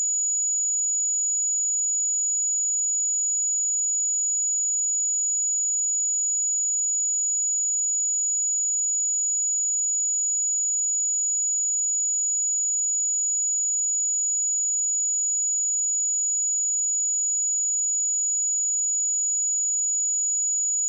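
A pure 6881 Hz sine-wave test tone, one steady high-pitched whistle held unchanged at constant level.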